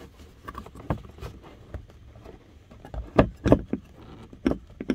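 Plastic clicks and knocks from hands working the factory dash speaker and its wiring plug, feeling for the connector's push tab. The sounds are scattered, with a few louder knocks about three seconds in and again near the end.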